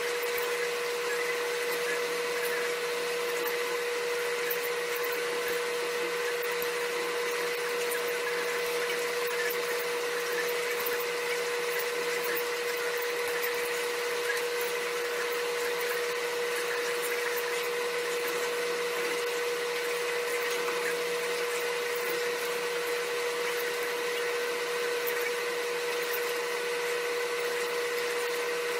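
A steady machine hum with a constant mid-pitched tone over an even hiss, unchanging in level.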